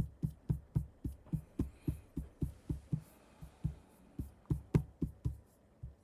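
Taiko drums from a software instrument, low hits in a steady rhythm of about four a second, stopping just before the end.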